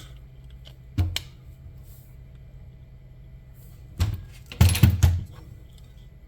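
Small parts and tools being handled on a workbench: a sharp click about a second in, then a cluster of louder knocks and clatter between four and five seconds in.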